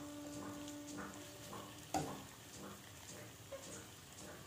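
Steel spoon scraping and tapping against a nonstick pan as spice-coated flour dumplings are turned in masala, with faint sizzling, and a sharp knock at the very end. A steady low hum runs under the first couple of seconds, then stops.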